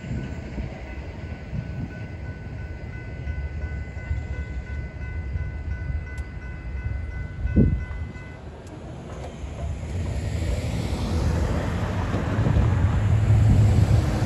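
A General Signals Type 3 electronic crossing bell rings steadily as the crossing gates rise, then cuts off abruptly a little past halfway, once the gates are up. A low rumble runs underneath, with a single thump just before the bell stops. Road noise builds near the end as traffic returns to the crossing.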